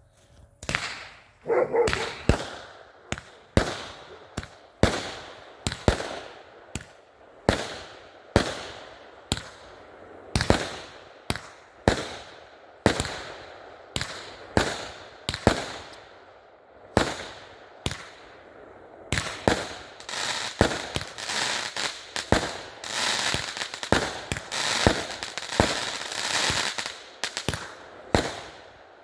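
A 36-shot fireworks cake firing, one loud shot after another, about one a second. Between roughly two-thirds and nine-tenths of the way through, the shots run together into continuous crackling.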